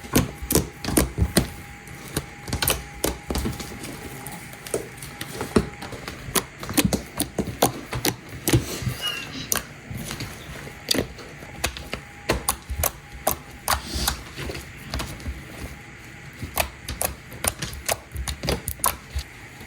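Hands squeezing and poking homemade slime, giving a run of irregular sticky clicks and small pops, several a second.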